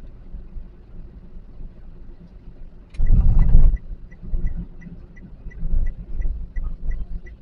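Inside a Toyota Calya on the move: a low engine and road rumble, a loud low thump lasting under a second about three seconds in, then the turn-signal indicator starting to tick evenly, about three clicks a second.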